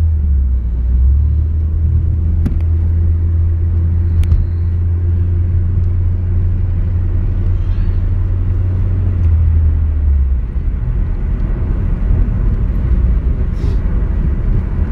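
Steady low rumble of a moving car, tyre and engine noise heard from inside the cabin at road speed. Two faint clicks come about two and four seconds in.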